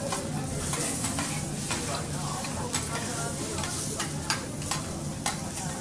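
Food sizzling on a teppanyaki griddle, with the chef's metal spatulas clicking and scraping on the hot plate at irregular moments, the sharpest clicks a little past the middle and near the end.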